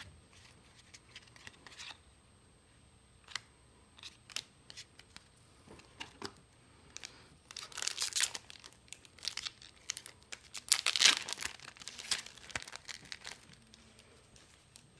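Trading-card booster pack wrapper being torn open and crinkled, with scattered small clicks and rustles; the loudest tearing and crinkling comes in two spells, about eight and eleven seconds in.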